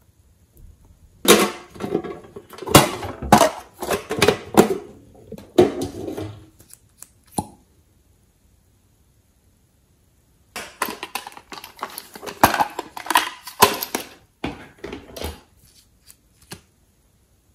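Thick glossy slime being pressed and dabbed in a glass tray, giving runs of sticky clicks, pops and crackles. There are two runs of several seconds each with a pause between.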